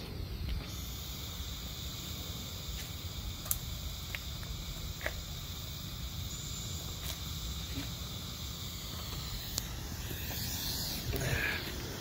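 Steady hiss of a burning Brite Star '6 Minute Smoke' firework as it pours out smoke, with a few faint clicks and a short rustle near the end.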